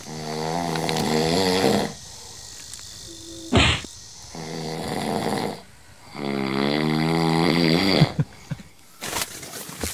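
A man snoring in three long, wavering snores, the last one dipping and then rising in pitch at its end. A short sharp sound comes between the first and second snores.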